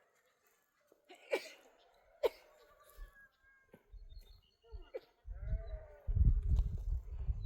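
Goats bleating, a few short calls. A loud low rumble takes over about five seconds in.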